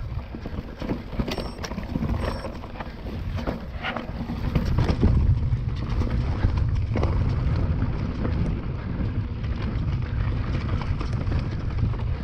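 Mountain bike descending a dirt forest trail: wind buffeting the camera microphone as a low rumble, with tyre noise and scattered clatters and knocks from the bike over roots and rocks. The rumble grows louder about five seconds in.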